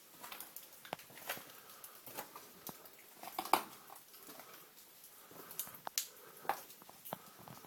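Footsteps crunching and scraping on loose, broken lava rock at an uneven pace, with heavy mouth breathing from the out-of-breath walker.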